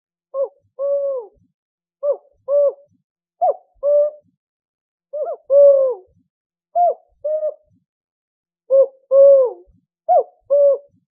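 Owl hooting in two-note calls, a short hoot followed by a longer one. The pair repeats seven times, about every one and a half seconds.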